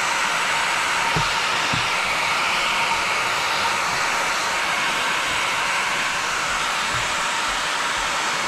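Handheld hair dryer running steadily: an even rush of blown air with a faint steady whine.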